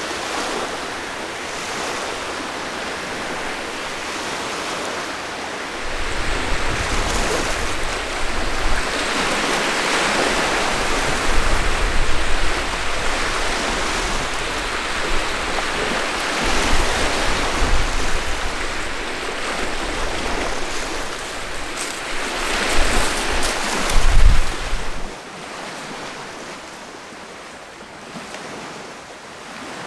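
Wind blowing across a lakeshore over waves washing in, with gusts buffeting the microphone in low rumbles. The sound drops suddenly to a quieter wash near the end.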